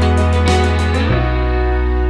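Background music: a steady beat with quick high ticks over held chords, the beat dropping out about a second in and leaving the sustained chords.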